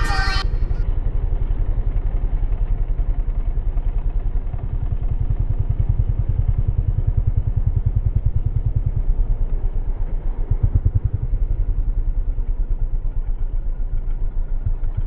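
Yamaha R15's single-cylinder engine running as the motorcycle rides slowly through traffic, heard up close from the handlebar, as a low, uneven throb.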